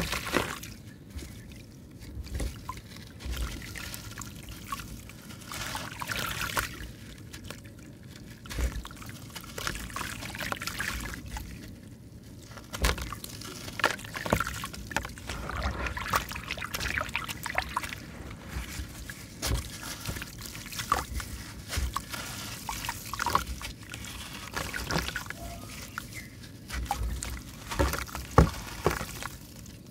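Chunks of dry sand-cement (sanment) crumbled by hand into shallow water in a plastic tub: grit and small pieces trickling and falling into the water in irregular rushes, with many short sharp clicks of grains.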